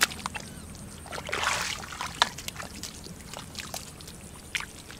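Shallow muddy water splashing and sloshing as a person works their hands through it, with scattered small knocks and one louder splash about a second and a half in.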